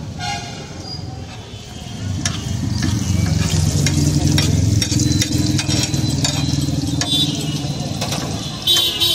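Hot oil sizzling on a large flat iron griddle while a metal spatula scrapes and stirs chopped beef tripe, with repeated clicks and scrapes of the blade on the iron. It grows louder about two seconds in. A short shrill tone cuts in near the end.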